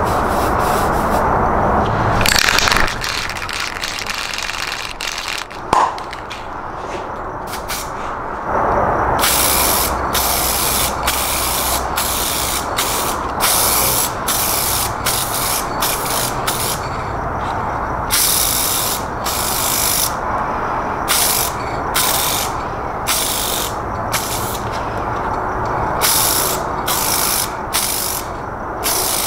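Aerosol rattle can spraying automotive clear coat in short hissing passes, about one burst a second, starting about a third of the way in.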